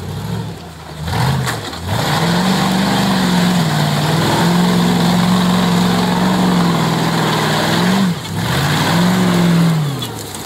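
Off-road tube-frame buggy's engine revved hard under load: the pitch shoots up about a second in, holds at high revs for several seconds, dips briefly, rises again, then falls off near the end.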